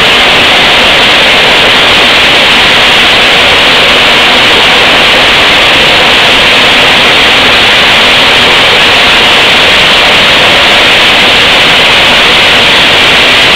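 Maize flour mill machinery running: a loud, steady roar and hiss with no change or break, its hiss strongest in the upper middle range.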